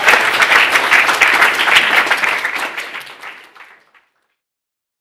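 Audience applauding, a dense patter of many hands clapping. It fades out from about two and a half seconds in and ends in silence at about four seconds.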